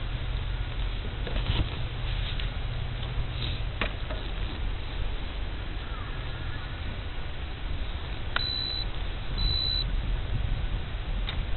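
Strong wind buffeting the microphone as a steady low rumble, with a few light clicks. Two short, high electronic beeps sound about a second apart near the end.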